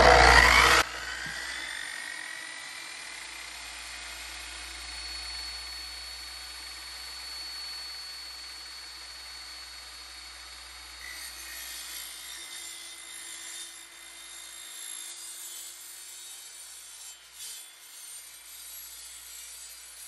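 A Bauer 14-inch, 15-amp corded concrete saw running with its blade in a cut through a thin steel panel. It is very loud for about the first second, then drops suddenly to a steadier, quieter whine, with rougher scraping noise coming and going in the second half.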